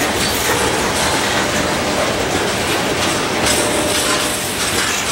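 Freight train's cars rolling slowly past at close range: a steady rumble and rattle of steel wheels on the rails.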